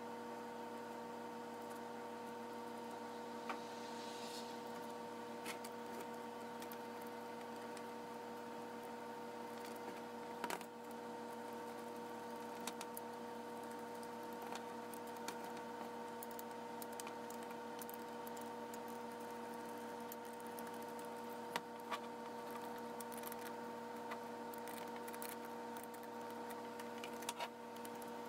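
A steady hum with a constant pitch, and scattered light clicks and taps from hand-tool work on a car heater core's valve and fittings.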